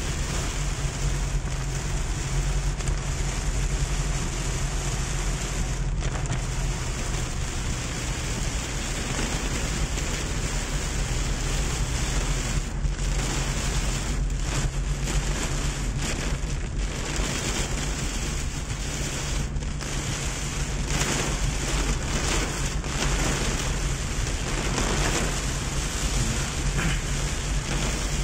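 Heavy rain beating on a car's roof and windshield, heard from inside the cabin, with a steady low hum from the moving car underneath.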